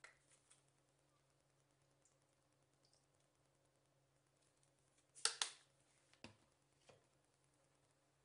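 Plastic ketchup squeeze bottle squirting and sputtering briefly about five seconds in, followed by two light clicks, otherwise near silence.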